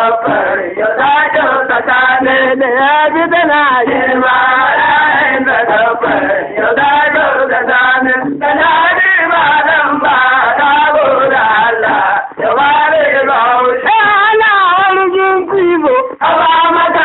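Hausa traditional (gargajiya) song: voices singing a wavering, ornamented melody in continuous phrases, with short breaks between lines.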